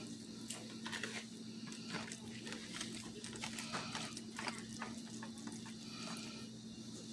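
Kitchen knife cutting into a whole roasted rotisserie chicken, with many small irregular clicks as the blade works through the skin and meat.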